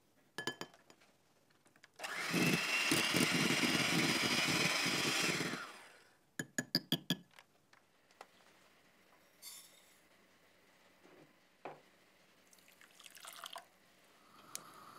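Electric kitchen blender running for about three and a half seconds, then winding down. Sharp clicks and knocks come just before and just after it.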